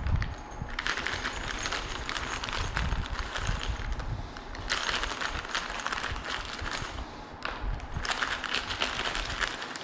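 Small wooden dowels and cabinet hardware handled and sorted by hand, a busy mix of light clicks, clatter and rustling in three spells with short pauses between.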